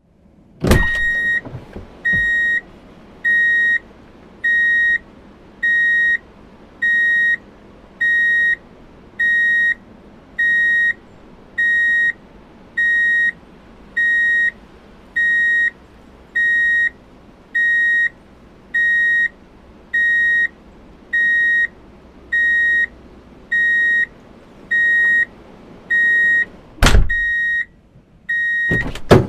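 A vehicle's reverse-gear warning beeper sounding: one steady, high single-pitched beep of about half a second, repeating roughly once a second. A loud thump comes just before the beeping begins, and two more near the end.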